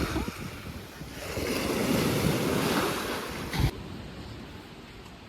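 Surf washing in at the shore in two swells, with wind buffeting the microphone. About three and a half seconds in it cuts off abruptly to a much quieter outdoor background.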